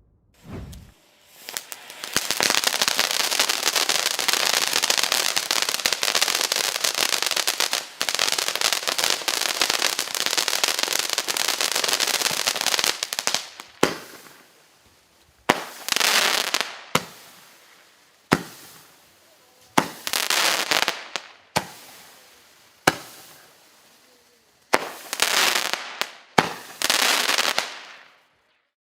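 Fireworks battery with a fountain and 0.8-inch shots: a fountain spraying sparks with a steady crackling hiss for about eleven seconds. Then about ten shots fire one after another, each a sharp launch pop followed by a second or so of crackling from the bursting stars.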